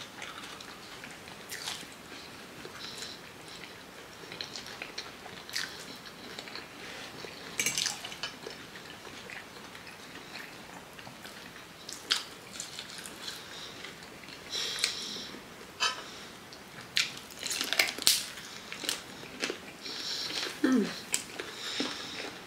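Two people eating chicken feet and fries: wet chewing and biting, with scattered short clicks that come more often in the second half.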